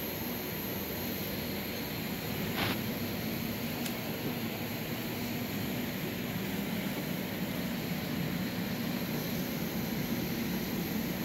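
Steady, even drone of a CNC router's extraction equipment running: a two-bag dust collector and vacuum pump. A short click sounds about two and a half seconds in.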